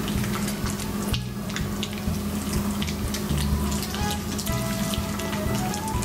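Maltese dogs licking and chewing bits of quail egg, many quick wet clicks and crackles, over background polka music.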